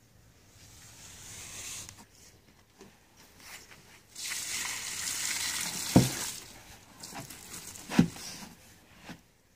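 Liquid Weber SAD-54 primer pouring in a thin stream from a plastic canister and splashing onto leafy ground, a brief hiss early on and a longer, louder one in the middle. Two sharp low thumps, about two seconds apart, are the loudest sounds.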